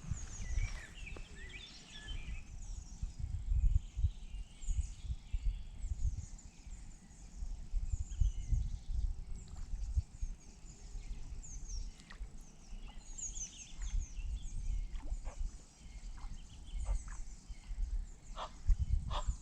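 Wild birds chirping and singing throughout, over a gusty low rumble of wind on the microphone. A few short clicks come near the end.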